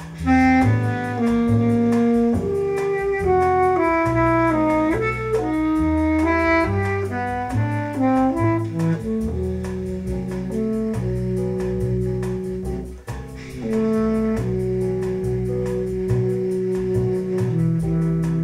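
Jazz recording played back over a multi-way home speaker system: a saxophone-led melody of stepping and held notes over a double bass line, with a brief break about thirteen seconds in. The low-to-mid crossover is switched between 600 Hz and 500 Hz during playback.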